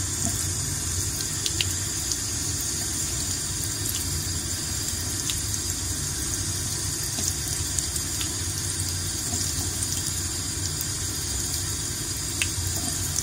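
Tap water running in a thin, steady stream over a glass lab bottle held under the faucet and splashing into the sink, cooling the hot molten agarose gel solution inside.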